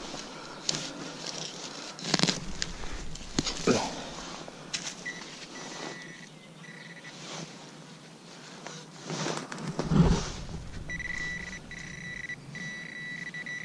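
Digging in soil: several scraping knocks of a digging tool, the heaviest about ten seconds in. From about eleven seconds a steady high electronic beep, broken by brief gaps, marks metal detecting gear sounding off on a target in the hole, a coin.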